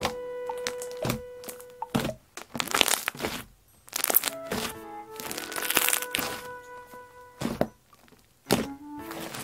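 Background music with steady tones, over bursts of crackling and squishing from homemade slime being worked by hand.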